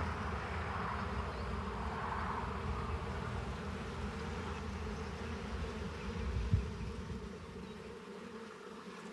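Honeybees buzzing steadily around an open hive whose frames are being loosened, with one short knock about six and a half seconds in.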